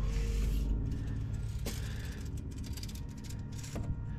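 Steel tape measure being handled: a short rustle as the blade is drawn out, then two sharp clicks, over a steady low hum.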